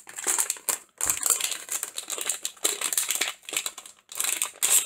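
Plastic wrapping being handled, crinkling in irregular bursts, with a soft knock about a second in.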